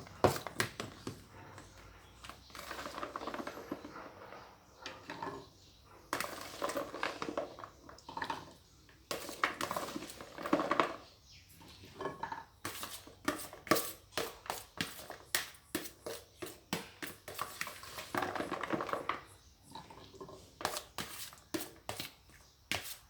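Cutlery clinking and scraping on a plate while a plate of som tum is eaten, with runs of quick clicks about two a second.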